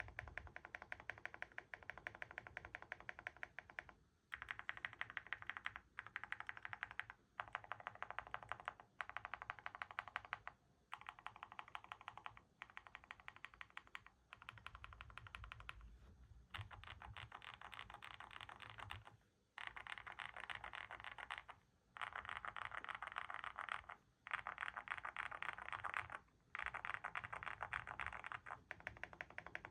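Rapid typing on a Monsgeek M1 V5 mechanical keyboard fitted with hand-lubed Akko Piano V3 Pro switches and PBT MOA-profile keycaps, dampened with a tape mod and polyfill. The keystrokes come in quick runs of a second or two, with brief pauses between them.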